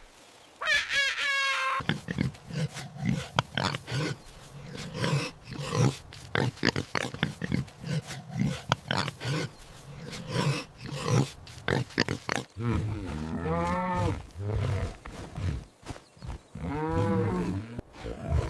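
Pig grunting over and over in quick short grunts, with a short pitched call about half a second in and two longer rising-and-falling calls near the end.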